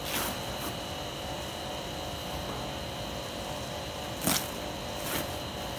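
Steady hum and high whine of a running air bubble film (bubble wrap) machine. Over it come a few short plastic rustles as hands brush and pat the bubble wrap on the roll, the loudest about four seconds in.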